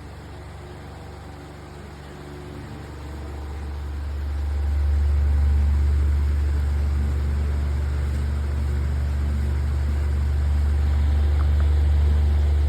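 Simple Deluxe 16-inch wall-mount fan running in sleep mode. Its low rumble of moving air builds over about three seconds and then holds steady, typical of the fan speeding up or sweeping toward the microphone.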